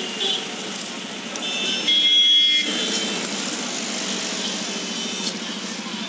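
Busy street traffic noise, with a vehicle horn sounding for about a second around two seconds in.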